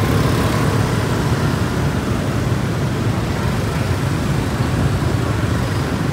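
Steady road traffic noise, a continuous low rumble of passing vehicles with no distinct events standing out.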